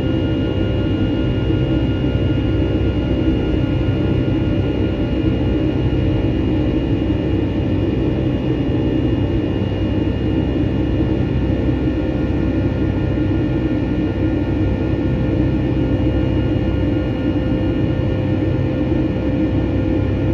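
Cabin noise of a Boeing 757-200 with its Rolls-Royce RB211 turbofans running, heard from inside the cabin: a loud, steady rumble of engine and airflow with a few thin, steady whining tones over it, unchanging throughout.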